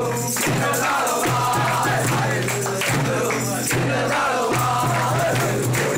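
A group of carolers singing a Christmas carol together, with a steady percussion beat.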